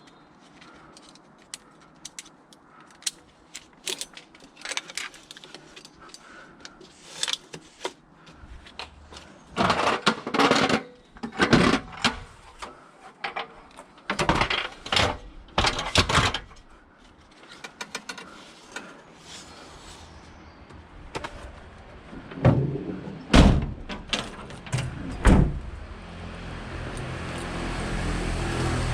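A run of knocks and clunks, bunched in two busy spells about a third of the way in and just past the middle, then three sharp, loud knocks, with a steady noise and low hum swelling up near the end.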